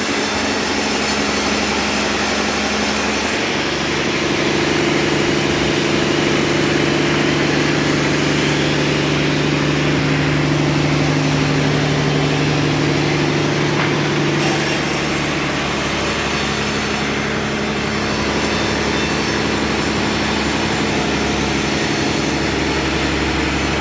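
A machine motor running steadily and loudly with a low hum. Its tone shifts about three and a half seconds in and again near the middle.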